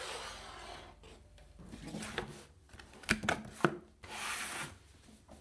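Handling noises from the build: something sliding and rubbing in several strokes, with a quick cluster of sharp knocks a little past three seconds in.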